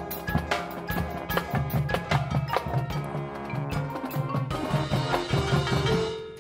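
Marching band playing, led by the front-ensemble percussion: quick mallet and drum strikes over held brass notes. About four and a half seconds in it swells into a sustained chord with a hiss-like wash, which breaks off at the end.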